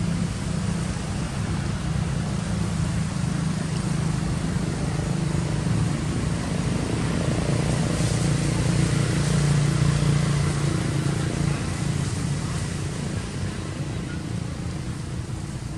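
A steady low engine drone, like a passing motor vehicle or aircraft, growing louder to a peak about ten seconds in and then fading.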